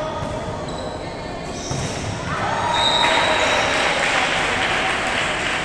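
Indoor volleyball rally in a gym hall: the ball is struck and bounces, and sneakers squeak on the wooden court. About three seconds in, as the point ends, a wash of players' voices and cheering swells and carries on.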